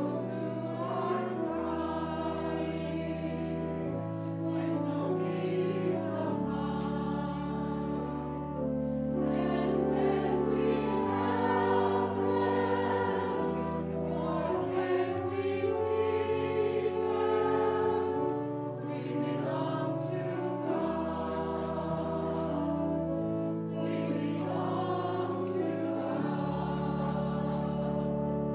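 Voices singing a hymn together over a sustained instrumental accompaniment, in slow, held chords.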